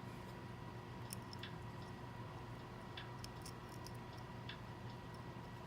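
Faint, scattered small clicks and taps as the small metal parts and screws of a Kiribi Kabuto butane lighter are handled during reassembly, over a steady faint electrical hum.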